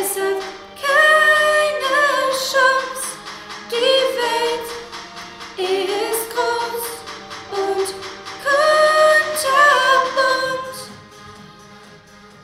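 A song sung by female voices in phrases of a second or two, fading out near the end.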